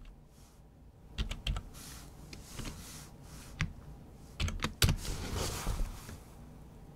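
Computer keyboard being typed slowly: separate key clicks spaced out, with a close pair about five seconds in as the message is entered, then a brief soft hiss.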